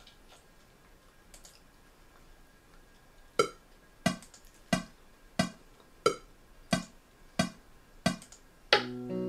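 A DAW metronome click track comes in about three seconds in and ticks evenly at about one and a half clicks a second, matching a 90 beats-per-minute tempo. Near the end, guitar music starts playing under the clicks. Faint clicking comes before the metronome starts.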